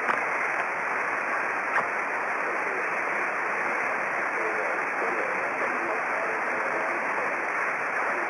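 Shortwave transceiver's receive audio on upper sideband around 27.555 MHz: steady band-noise hiss with a weak voice barely showing under it. There is a small click near two seconds in.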